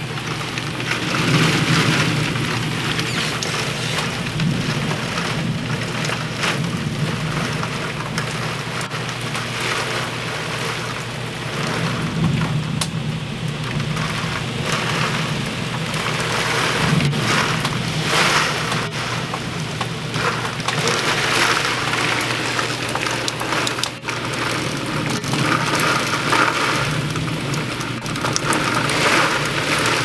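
Heavy storm rain driven by high winds, a steady loud hiss that swells and eases with the gusts every few seconds.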